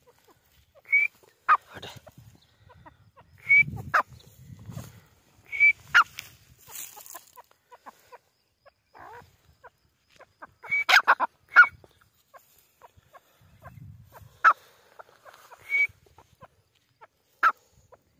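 Grey francolin (Irani teetar) giving short, sharp call notes, mostly in pairs, with a quick run of several notes about two-thirds of the way through and single notes near the end. Faint low rumbling lies under the calls in places.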